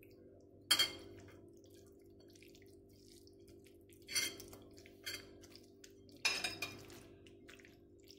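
Hand-mixing chicken in a yogurt-and-spice marinade in a ceramic bowl, with a few sharp clinks of the metal spoon against the bowl: once about a second in, a couple around the middle, and one more near the end. A steady low hum runs underneath.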